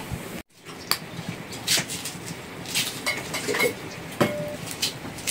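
Dishes and utensils clinking and knocking: about half a dozen separate clinks, one near the end leaving a brief ring. The sound cuts to silence for a moment about half a second in.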